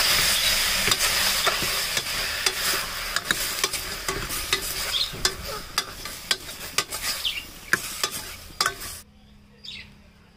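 Goat bones, onion and tomatoes sizzling in oil in a stainless steel pressure cooker while a steel ladle stirs, clicking and scraping against the pot. The sizzle fades gradually and cuts off abruptly about a second before the end.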